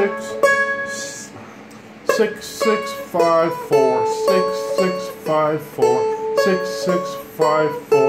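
Seagull Merlin M4, a four-string diatonic instrument, being fingerpicked. A few notes ring out at first; from about two seconds in comes an even run of plucked notes, about three a second, over a steady ringing drone note.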